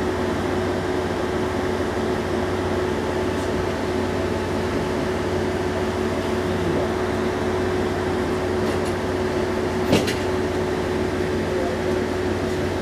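Steady hum and drone of an AIZU Mount Express diesel railcar standing still with its engine and onboard equipment idling, heard from the driver's cab, with a constant whine over it. A single sharp click about ten seconds in.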